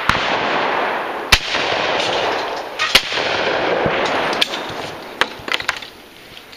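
Shotgun shots from an over-and-under at a sporting clays station: three sharp reports, near the start, about a second and a half in and about three seconds in, over a loud steady rush of noise that fades out about five seconds in. Several lighter clicks follow near the end as the shooter handles the gun.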